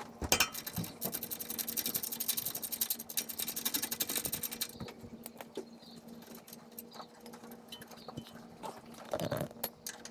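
A hand socket ratchet clicking rapidly for about four and a half seconds as the brake hose mount bolt is turned out, then scattered light metallic clicks and taps, over a steady low hum.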